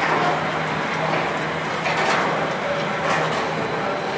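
Core-filling snack production line machinery running: a steady mechanical din with a low hum, from chain-and-sprocket drives and mesh conveyor belts turning.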